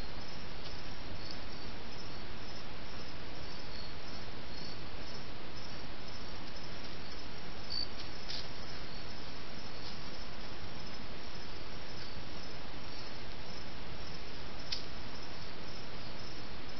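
Night insects chirping in a steady, high, repeating trill over the constant hiss of a trail camera's microphone, with a couple of faint clicks.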